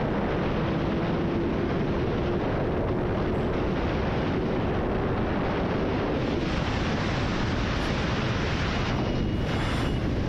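Heavy wind noise buffeting a helmet-mounted camera microphone on a sport motorcycle at highway speed, a steady rush that buries the engine. A faint steady tone runs under it for the first six seconds or so.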